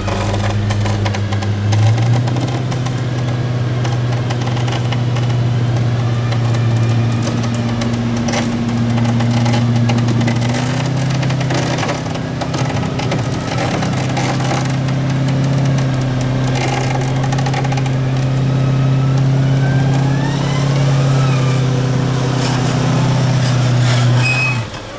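Land Rover 4x4's engine running hard at steady raised revs while the vehicle works through deep mud, the note shifting a few times. A fainter whine glides up in pitch about three-quarters of the way through, and the engine note drops away suddenly just before the end.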